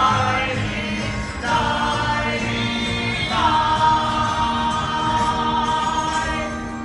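Singers finishing a pirate sing-along song over a backing track. The last note is held for about three seconds in the second half.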